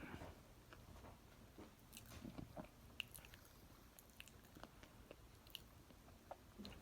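Near silence with faint, scattered small clicks and ticks, the sharpest about three seconds in.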